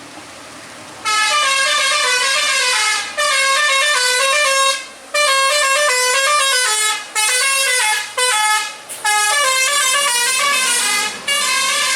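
Tour bus's Basuri telolet horn playing a fast melody of stepped notes, starting about a second in and running in several phrases with short breaks between them.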